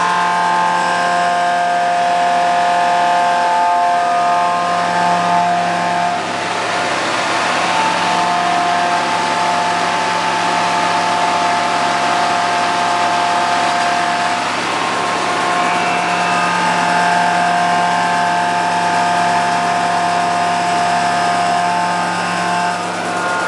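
Mobile feed mill truck running under load: its diesel engine drives the mill and the air system that sucks shelled corn from a grain bin through the suction hose. A steady loud drone with a high whine over it that drops out briefly and comes back.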